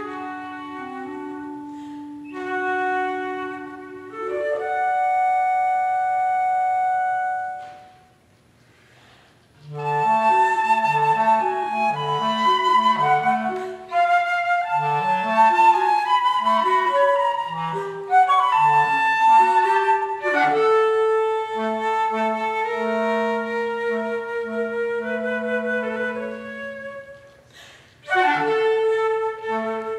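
Flute and B-flat clarinet playing a duet. Held notes at first, then a rest of about a second and a half, then a busier passage in which the clarinet plays short repeated low notes under the flute's line, settling back into long held notes, with a brief break near the end.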